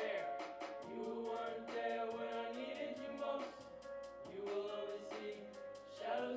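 A man singing into a microphone over keyboard and electronic backing music, with sustained layered voices and a steady, fast ticking beat.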